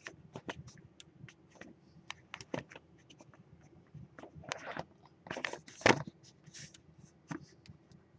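Handling noise of a phone camera being turned and moved about: scattered clicks, taps and scrapes, the loudest just before the six-second mark.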